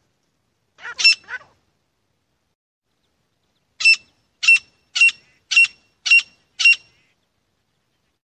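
Grey francolin calling: a short group of notes about a second in, then, after a pause, six loud calls evenly spaced at about two a second.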